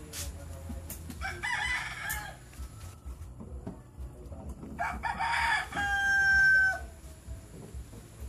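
A rooster crowing twice: a short crow about a second in, then a longer crow from about five seconds in that ends on a held high note.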